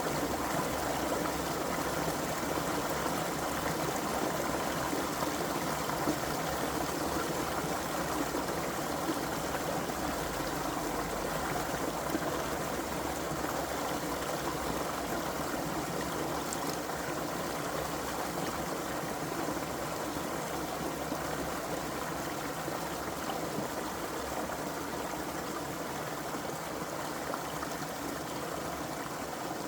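Creek water flowing steadily, a continuous even rush of running water that eases slightly near the end.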